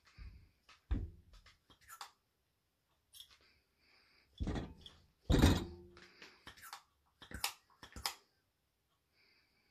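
Handling noise from a plastic boost-control solenoid and its electrical connector being held and pressed by hand: a string of short thunks and clicks, with two heavier thuds in the middle.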